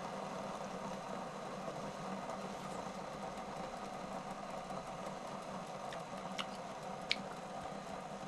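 A person chewing food, with a couple of short sharp clicks in the second half, over a steady background hum.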